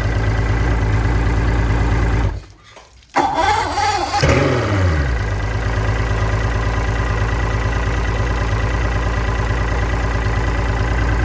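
1999 Mercury 200 hp Optimax direct-injected two-stroke V6 outboard idling. About two seconds in the sound drops away for under a second, then the engine comes back abruptly with a short flare in revs that settles to a steady idle.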